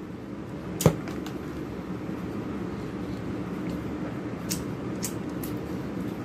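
Eating sounds over a steady low hum: a sharp clink of a spoon on a foil food tray about a second in, then a few soft mouth clicks while chewing bread.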